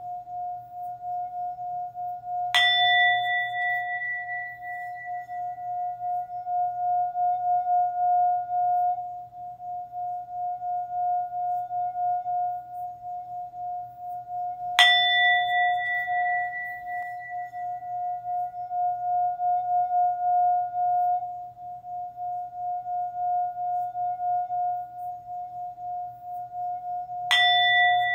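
Singing bowl struck three times, about twelve seconds apart, each strike ringing out with bright overtones that fade over a few seconds. Between strikes its low note hums on steadily with a slow wavering.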